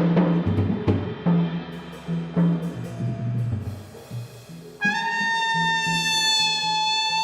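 Jazz trio playing: a double bass plays low notes under a few scattered drum strikes, then near the end a brass horn comes in on one long held note.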